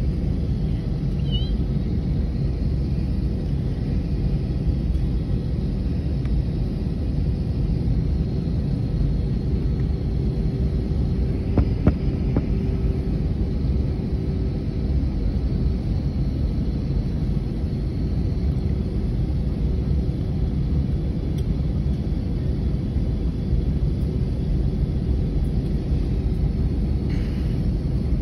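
Airliner cabin noise while the jet taxis: a steady low rumble of the engines and rolling aircraft heard from inside the cabin, with two brief clicks near the middle.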